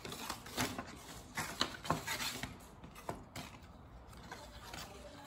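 Stiff construction-paper strips rustling and brushing together as they are handled, with a few light taps, mostly in the first three seconds.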